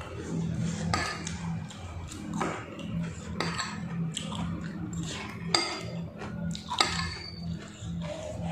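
A metal spoon and fork clinking and scraping against a plate while eating, with sharp clinks about five and a half and seven seconds in. A steady low hum runs underneath.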